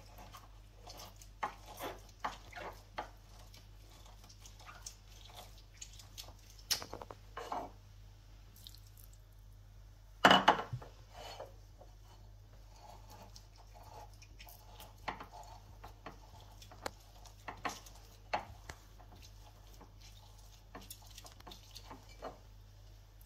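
Lemon halves twisted and pressed by hand on a glass citrus juicer: scattered small clicks, scrapes and drips of juice against the glass, with one louder knock about ten seconds in.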